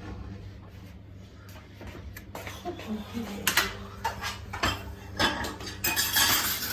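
Irregular clinks and knocks of hard objects, growing more frequent about halfway through and densest near the end, over a steady low hum.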